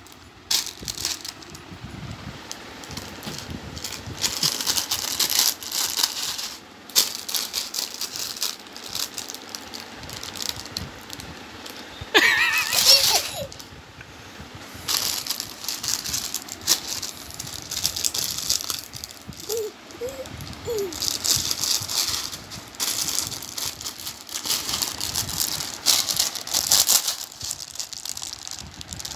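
A baby's hands squeezing and crushing a plastic snack packet: the wrapper crinkles and the snack inside rattles in repeated bouts of rustling. A short high-pitched baby squeal comes about twelve seconds in, and brief babbling around twenty seconds.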